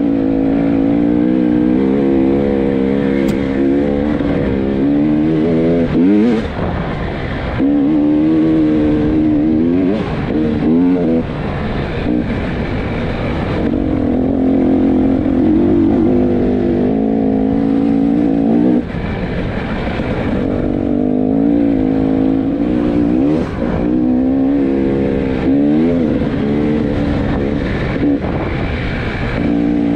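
Two-stroke 300 cc enduro motorcycle engine being ridden off-road, revving up and down with the throttle, its pitch rising and falling repeatedly, with brief drops around six and nineteen seconds in.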